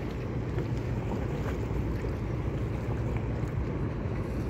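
Steady low rumble of a moving river boat and its wake water, with wind buffeting the microphone.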